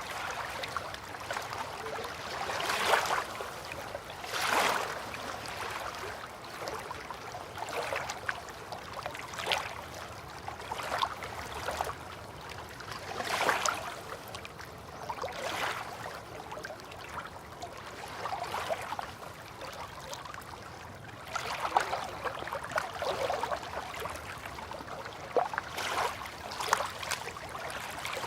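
River water lapping and splashing gently, in irregular small swells every second or two.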